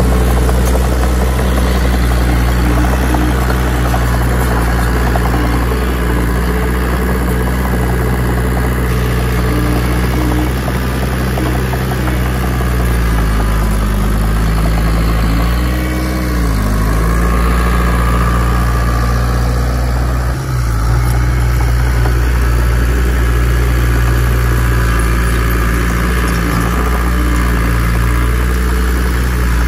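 Heavy diesel engine of earthmoving machinery running steadily. Its pitch dips and rises briefly about halfway through.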